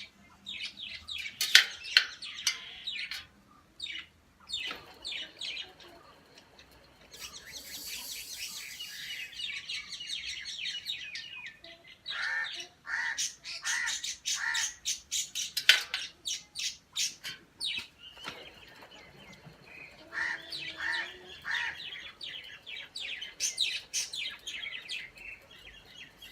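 Birds chirping and calling in runs of quick repeated notes, with short pauses between the runs.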